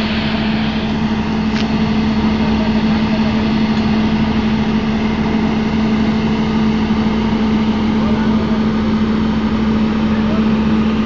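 Volvo EC360 excavator's diesel engine running steadily at a constant speed, a loud even hum with a strong low tone.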